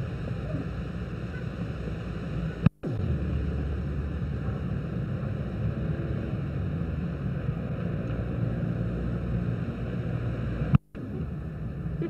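Steady low rumble and hiss of outdoor background sound on an old film soundtrack, broken twice by a sharp click and a brief dropout, about a third of the way in and near the end, where the film is spliced.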